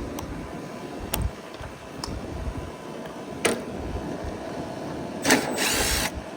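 Cordless drill fitted with a 5/16 nut driver, with a few scattered clicks and knocks, then one short whir of the drill about a second before the end, over a steady low hum.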